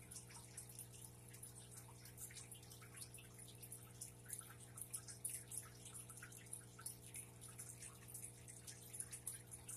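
Faint, irregular small clicks and ticks of small fishing tackle (split-shot weights and hooks) being picked up and handled by fingers on a tabletop, over a steady low hum.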